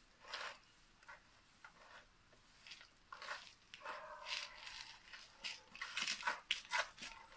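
Hands kneading and scraping damp soil in a shallow tray, a busy run of short gritty strokes that grows more frequent about three seconds in. A few short high-pitched calls sound around the middle.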